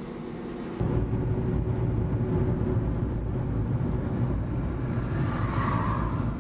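Steady low road and engine rumble heard inside a car cabin at highway speed; the rumble steps up abruptly about a second in and then holds steady.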